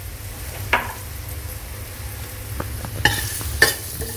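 Minced aromatics sizzling in a little oil in a stainless steel stockpot, over a steady low hum. About three seconds in, a metal utensil starts stirring, scraping and clicking against the pot.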